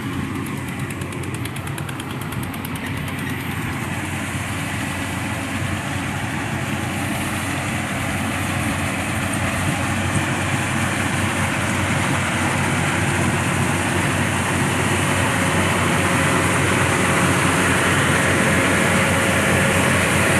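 Rice combine harvester running steadily, its engine and machinery noise growing gradually louder.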